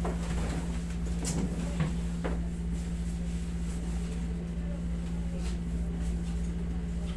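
Steady low hum of a window-type air conditioner running, with a few faint knocks in the first couple of seconds.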